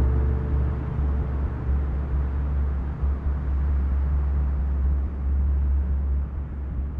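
A steady low drone with a noisy wash over it and no clear notes: an ambient passage of the soundtrack music, between more tuneful parts.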